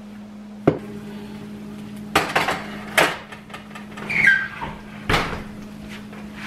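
Kitchen clatter: dishes and utensils being handled, with a sharp knock about a second in, a few clattering knocks between two and three seconds, another knock near five seconds and a brief squeak just after four seconds. A steady low hum runs underneath.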